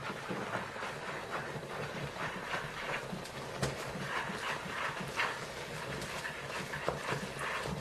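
Wooden spoon stirring thick ragi flour and cooked rice in a metal pot, with irregular knocks and scrapes against the pot's side, several a second. The flour is being worked in until no dry flour shows.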